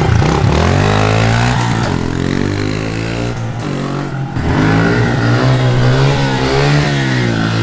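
Honda CRF110F mini dirt bike's small single-cylinder four-stroke engine revving as it is ridden, its pitch climbing and dropping several times as the throttle is opened and eased off, including while the front wheel is lifted in a wheelie.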